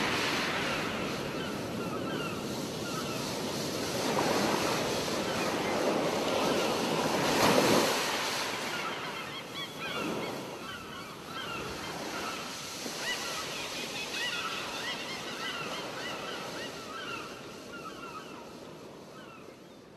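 Surf washing up on a sandy beach, swelling and easing every few seconds, with many short bird calls over it. The sound slowly fades out near the end.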